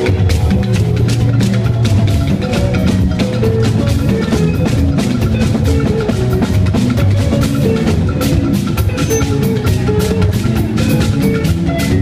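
Loud upbeat music with drums keeping a steady beat over sustained pitched notes.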